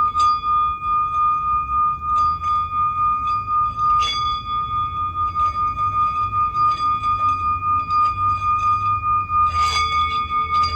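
Singing bowl ringing one steady, high tone with a pulsing wobble in its loudness, struck again about four seconds in and near the end. A low hum runs underneath.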